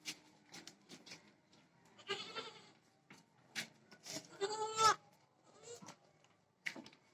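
Sirohi goats bleating: a shorter bleat about two seconds in, then a louder, longer one around four to five seconds in. Scattered short clicks and knocks run throughout.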